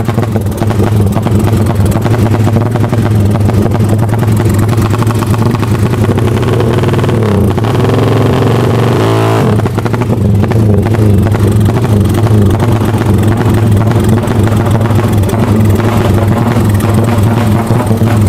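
Bored-up Honda CB single-cylinder motorcycle engine (66 mm piston, 28 mm carburettor) running loudly with a stuttering, burbling exhaust note from its 'full brebet' carburettor setting. The note shifts briefly about eight seconds in.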